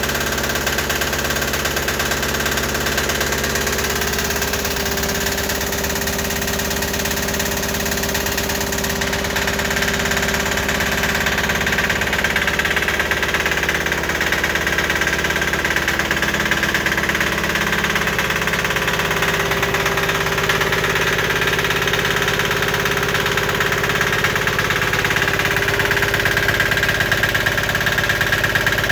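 Chinese 168F single-cylinder air-cooled diesel engine running steadily, with a knocking diesel clatter, during its break-in run.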